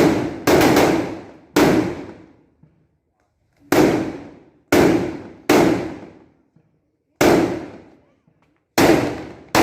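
Large firecrackers (petasan) from a hanging string (mercon renteng) going off one at a time: about nine loud bangs at uneven intervals, each echoing away over about a second.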